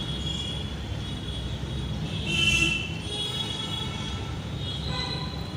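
Metal tools scraping and squeaking on the lock of the one-way clutch nut on a TVS Ntorq scooter engine, with a louder squeak about two and a half seconds in, over a steady low rumble.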